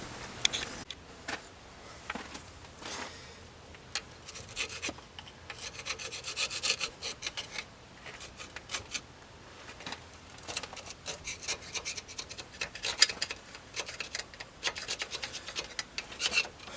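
Wire brush scrubbing flaking paint off the aluminium OMC stern-drive intermediate housing, in many quick back-and-forth strokes. The scrubbing comes in spells, with a lull about halfway through.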